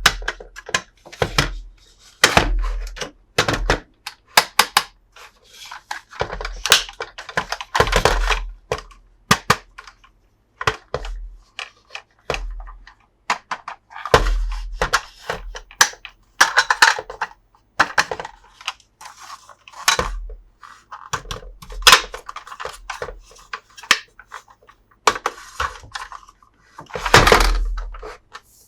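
Toy packaging being handled and opened: irregular plastic clicks, knocks and thunks mixed with short bursts of crinkling and tearing.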